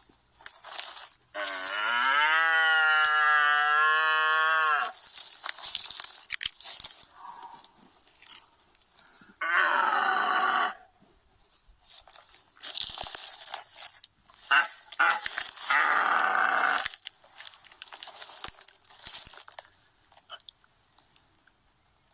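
A cow mooing three times: one long call rising slightly in pitch about a second in, then two rougher, shorter moos around ten and sixteen seconds in. A crunching rustle comes and goes between the calls.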